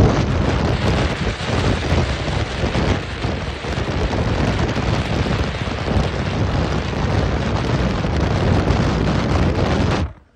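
Heavy wind noise on the microphone of a camera held out of a moving car, mixed with road noise from tyres running on the bridge's open steel grate deck. It cuts off suddenly near the end.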